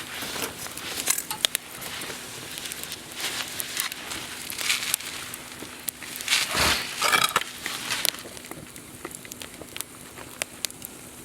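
Wood campfire crackling, with irregular sharp pops and snaps. A louder brief rush of noise comes about two-thirds of the way through.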